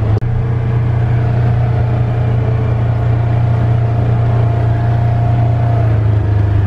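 Side-by-side utility vehicle's engine and drivetrain running at a steady speed, heard from the seat: a steady low drone with a faint whine above it that fades near the end. The sound cuts out for an instant just after the start.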